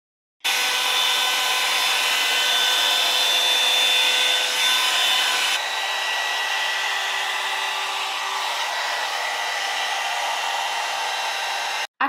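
Two blow dryer brushes running one after the other, each a steady rush of air with high whining tones. The first, the Revlon One Step, starts suddenly and is the louder of the two. About five and a half seconds in it switches to the Amika blow dryer brush, a little quieter with a different whine, which cuts off just before the end.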